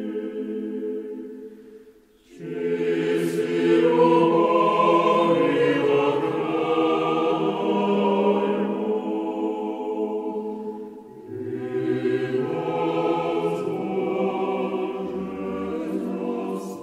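Slow choral music: a choir singing long held chords. It drops away almost to silence about two seconds in, and dips again around eleven seconds before the next phrase.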